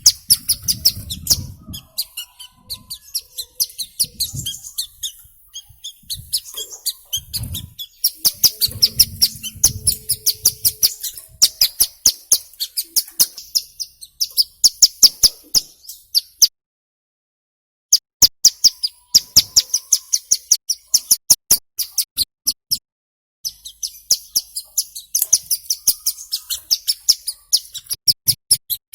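Ciblek gunung (a prinia) singing: fast runs of sharp, high, ticking chirps, about five or six a second, in long phrases broken by brief pauses. A few dull low thumps are heard in the first ten seconds.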